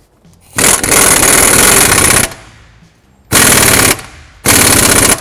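Pneumatic impact wrench hammering on the crankshaft pulley bolt in three bursts: one of about a second and a half, then two short ones near the end.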